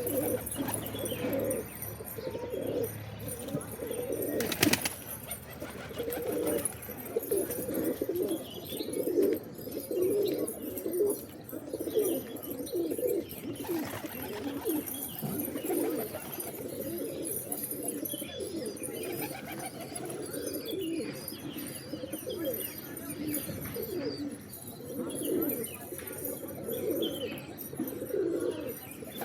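Several pigeons cooing continuously, their low, overlapping coos repeating throughout, with a single sharp click about five seconds in.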